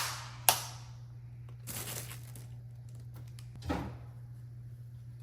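A sharp click, then two short scraping, rustling noises as leftover food is dug out of a container with a spoon and emptied into a trash bag, over a steady low hum.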